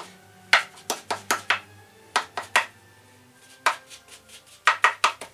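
A 2-inch paintbrush tapped repeatedly against a stretched canvas, dabbing in grass texture: quick sharp taps in short runs of three to six with brief pauses between.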